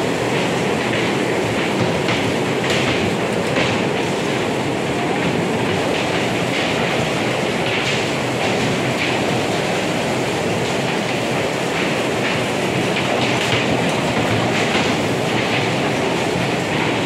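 Electric bumper cars driving around the rink: a steady rumbling running noise, with irregular hissing scrapes every second or so.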